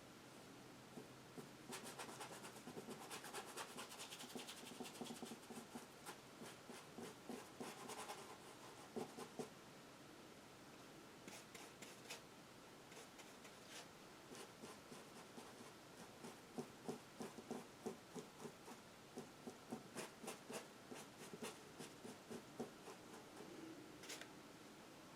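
Paintbrush scrubbing and dabbing acrylic paint onto canvas in runs of quick, short scratchy strokes, faint and close.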